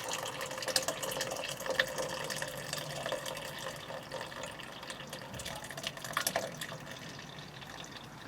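Hot cooked sloe berry mixture being poured through a muslin cloth into a bowl: liquid pouring and splashing, with small clicks and ticks throughout, getting a little quieter towards the end.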